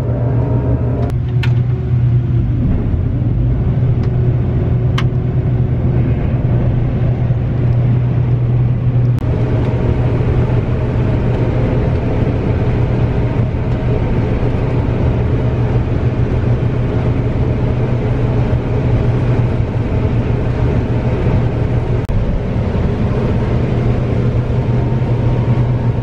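John Deere combine running at harvest, heard from the cab: a loud, steady low hum from the engine and threshing machinery. About nine seconds in, a brighter rushing noise joins as the header starts taking in soybeans.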